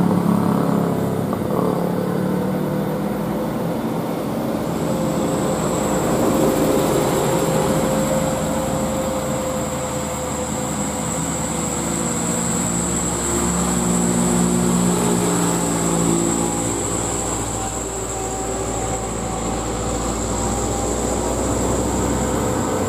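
Diesel engines of loaded trucks, a Hino 500 and a Fuso light truck, pulling slowly up a steep climb under load. A steady high whistle comes in about five seconds in.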